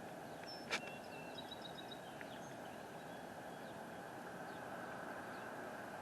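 Steady hum of street traffic, with a few bird chirps in the first half and one sharp knock a little under a second in.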